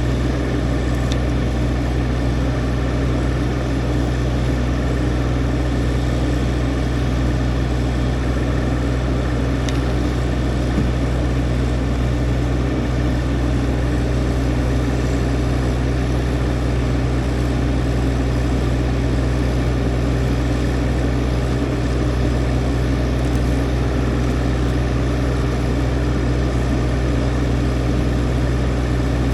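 An engine running steadily at one constant speed, with no change in pitch or level.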